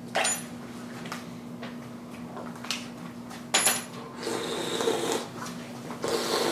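Wet mouth noises of someone spitting out and slurping a thick mayonnaise mixture. A few sharp knocks come through, the loudest about three and a half seconds in, over a steady low hum.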